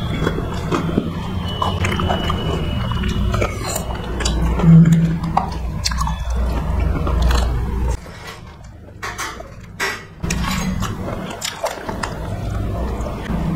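Close-miked chewing and mouth sounds of people eating rice and curry with their hands, with scattered sharp clicks and smacks. The chewing drops away for about two seconds past the middle, then resumes.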